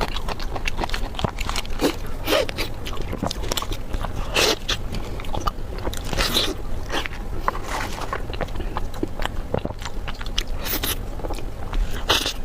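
A person biting and chewing food close to the microphone: a dense run of irregular short mouth clicks, with a few louder bites about four seconds in, six seconds in and near the end.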